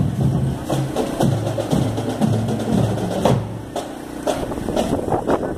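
Drums beating about twice a second over low, stepping bass notes, like a parade band playing; the bass notes fade about three and a half seconds in.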